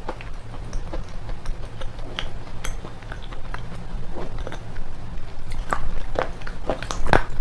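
Close-miked biting and crunching of red slate pencils: a run of sharp cracks and crunches that come thicker and louder over the last two seconds.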